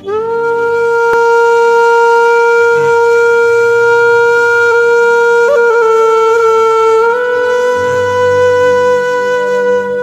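Background music: a wind instrument holding one long note, its pitch wavering briefly about five and a half seconds in and stepping slightly up about seven seconds in, over a soft low drone.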